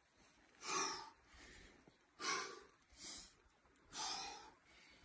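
A person breathing hard in short, forceful puffs, about five breaths roughly a second apart, the strongest about one, two and four seconds in.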